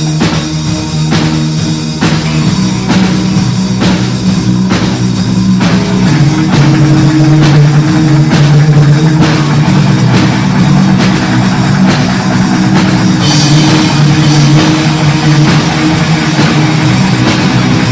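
Punk rock band playing live in a rehearsal room: drum kit, electric bass and electric guitars. Drum hits mark a steady beat, about two a second, for the first few seconds, then the full band comes in a little louder, with a bright cymbal-like crash about two-thirds of the way through.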